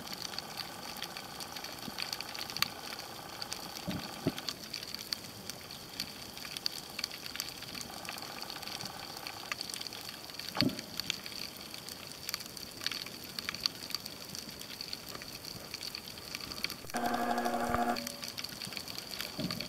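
Underwater sea ambience picked up by a submerged camera: a steady hiss sprinkled with small clicks and crackles, with a humming tone that comes and goes several times, loudest for about a second near the end.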